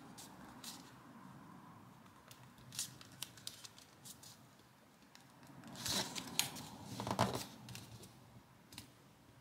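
Folded paper rustling and crinkling as it is pulled open and creased by hand, with scattered soft crackles and a louder stretch of rustling about six to seven seconds in.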